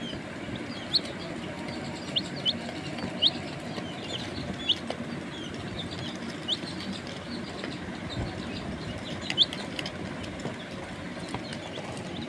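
Chicks peeping: short, high chirps, a dozen or so at irregular intervals, over a steady low background noise.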